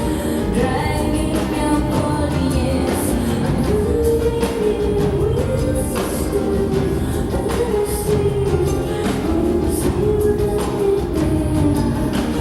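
Live rock song in full flow: a woman singing long, gliding lines over a band with drums, and cymbal crashes every few seconds.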